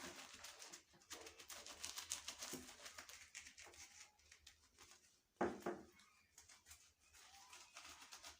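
Faint wet rubbing and rustling of a washing cloth scrubbing the plastic parts of an electric shower head in soapy water, with one louder thump about five seconds in.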